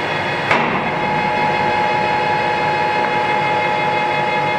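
Kingston HD series geared-head engine lathe running with its spindle at 340 RPM, a steady whine of several tones from the headstock gearing. A single sharp knock comes about half a second in, and a high steady tone holds after it.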